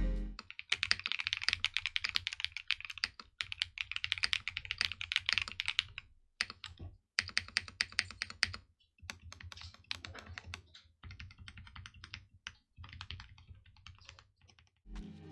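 Typing on a mechanical keyboard fitted with DK Creamery Cookies 'n Cream switches, the keys clacking in quick runs with short pauses. The typing is densest for the first six seconds, then comes in shorter bursts.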